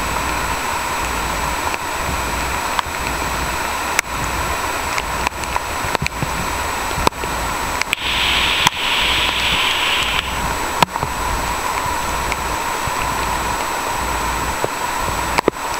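Heavy rain falling steadily on rainforest foliage, mixed with the rush of a muddy, high-running stream, with scattered sharp taps throughout.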